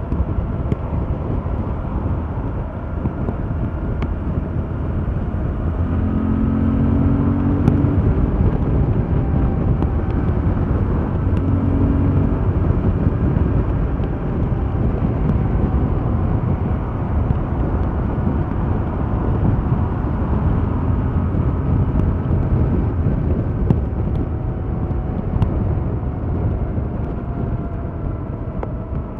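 Stock Yamaha MT-07's 689 cc parallel-twin engine running under way, mixed with steady wind and road noise; its engine note comes through more clearly twice, about six and eleven seconds in.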